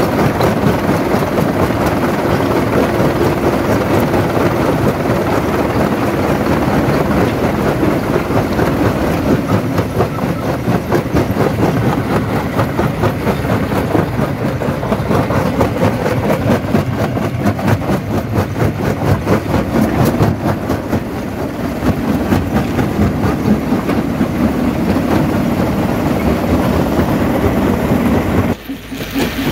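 Jaw stone crusher running, with a steady, dense clatter and crunching of rock being broken between its jaws. It drops away briefly near the end.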